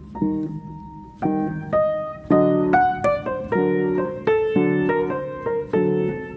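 Background piano music: a melody of struck notes that ring and fade, several notes a second.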